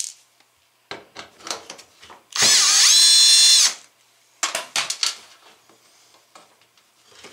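Cordless drill/driver running once for about a second, backing out a Phillips screw from the washer's front panel; its whine rises as it spins up, then holds steady. Short clicks and taps of the tool and screw being handled come before and after.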